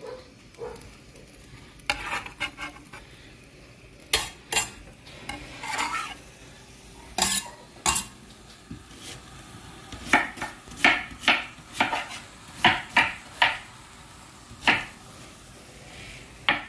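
Kitchen utensils knocking and clattering on a cutting board and pot, in irregular sharp knocks that come in a quicker run of about two a second from about ten seconds in, over a faint steady sizzle from the pot.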